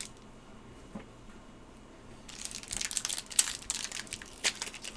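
Foil booster pack wrapper crinkling and being torn open, a dense crackling that starts about two seconds in.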